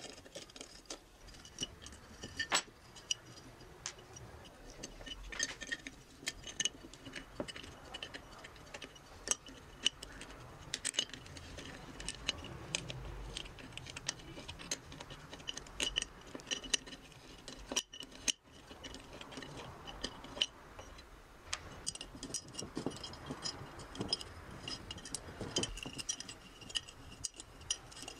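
Small open-end wrench clicking and clinking on the rusted terminal nuts and steel housing of an old electric clothes iron as the nuts are worked loose: irregular, small metallic ticks and clinks.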